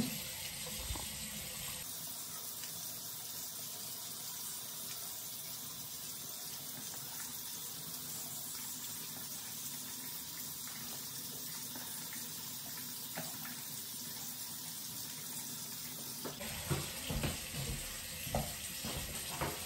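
Tap water running steadily into a bathroom sink during face washing, with louder, uneven splashing near the end.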